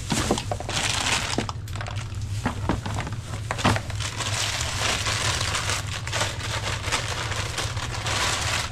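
Plastic bags and bubble wrap crinkling and rustling as they are handled and lifted out of a plastic tote, with a few sharper clicks, over a steady low hum.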